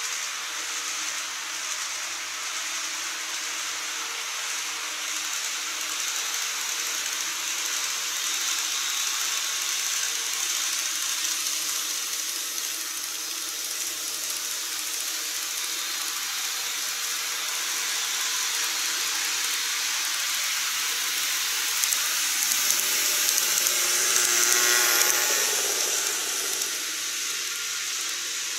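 KATO N-scale model trains running on their track, the wheels and motors giving a steady high rolling hiss that swells louder, with a fine ticking, as a train passes close to the microphone near the end.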